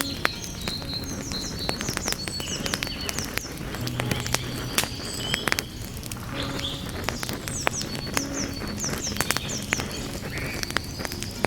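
Wood fire crackling with frequent sharp pops, with birds chirping in quick high runs twice.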